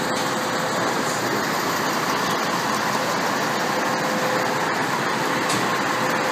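Diesel engines of fire trucks running close by amid street traffic: a steady rumble with a faint steady hum.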